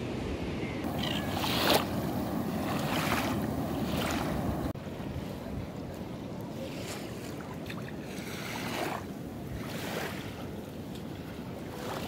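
Small sea waves washing over a shallow sandy shore, with wind on the microphone; the surge swells and eases every second or two and drops off suddenly about five seconds in.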